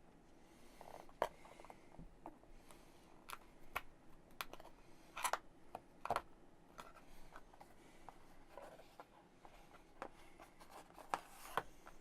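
Faint handling of small laser-cut wooden kit pieces: scattered clicks and taps with short scraping sounds as parts are cleaned up and fitted, with a few sharper clicks about a second in, around five to six seconds in, and near the end.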